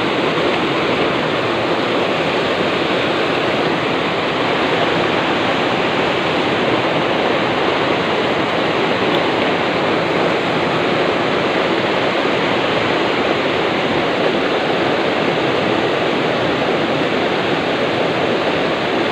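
Fast, muddy water rushing through a concrete channel and churning into whitewater over a sunken log: a steady, rather noisy rush of water.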